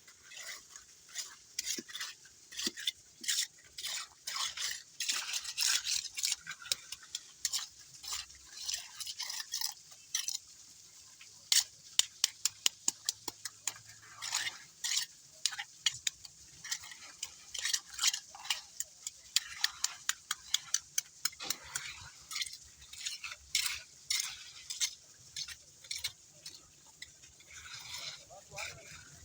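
Metal tools scraping and clinking in wet lean concrete mix: shovels and steel pans worked by hand. About halfway through comes a quick run of sharp, evenly spaced knocks, about three a second.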